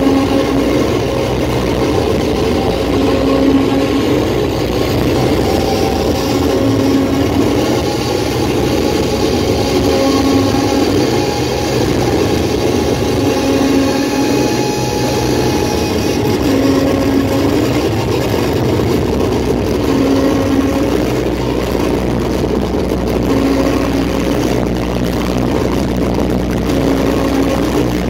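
Live electronic noise music: a loud, dense, unbroken droning wall of noise with a soft pulse that loops about every three and a half seconds. A deeper low rumble comes in about two-thirds of the way through.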